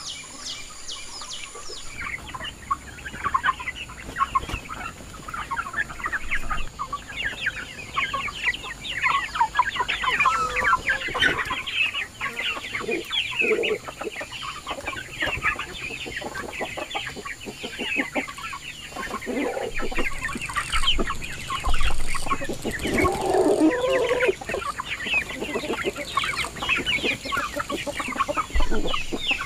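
A flock of chickens clucking and chirping, many short calls overlapping, with a louder, lower call about two-thirds of the way through.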